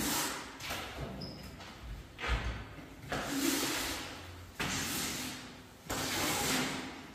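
Long-handled rubber floor squeegee scraping across a rough concrete floor in repeated push strokes, a swish roughly every second or so.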